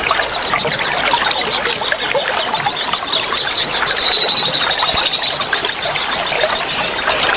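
Stream water trickling under a busy chorus of small wild birds chirping, with a steady high thin tone behind them. A long whistled bird note sounds from about three to five and a half seconds in, followed by quick rising chirps.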